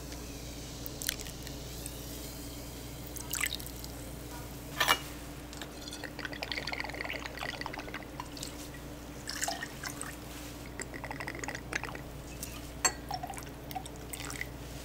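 Cocktail preparation at a bar: liquid poured and dripping into glassware, with glass and bar tools clinking now and then. A sharp clink about five seconds in is the loudest sound.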